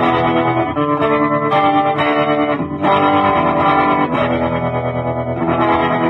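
Electric guitar played through a 1960s Kustom Kraft tube amp: ringing chords that change every second or so, with a brief drop just before the midpoint.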